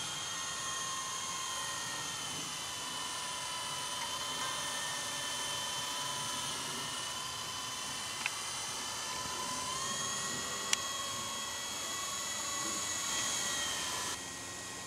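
Small radio-controlled helicopter hovering and flying, its motor and rotor giving a steady high-pitched whine that rises slightly in pitch about two-thirds of the way through. Two faint short ticks are heard along the way.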